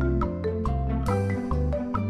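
Upbeat background music with a marimba-like mallet melody over a steady bass line.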